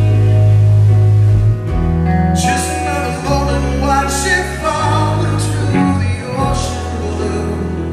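Live rock band performance with a male lead vocalist singing over sustained bass notes. The accompaniment turns fuller and brighter about two and a half seconds in.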